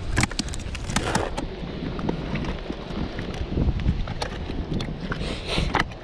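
Wind buffeting the microphone with a steady low rumble, over scattered wet knocks, clicks and rustles of fish being handled in a plastic bucket. A louder rustle comes near the end.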